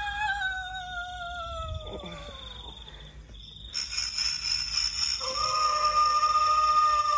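Eerie ghost-voice sound effect played from a phone: a wavering wail that slowly falls in pitch, joined just before four seconds by a shrill high layer, then a new held wail about five seconds in.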